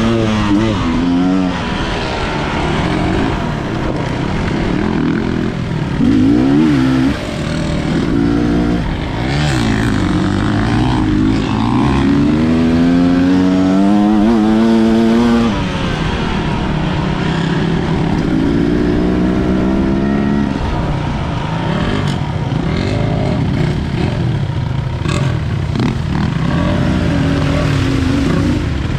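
Enduro dirt bike engine being ridden, its pitch rising and falling again and again as the throttle opens and closes and gears change. There is a long climb in revs that drops off about halfway through.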